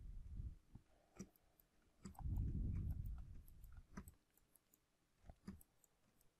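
Scattered sharp clicks from working a computer while drawing, about a dozen spread over a few seconds. A low muffled rumble runs for about two seconds in the middle.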